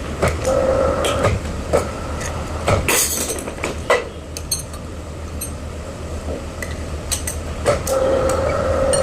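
A heavy construction machine's engine rumbling steadily under a run of irregular metal clanks and knocks. A short whine comes in twice, about half a second in and again near the end.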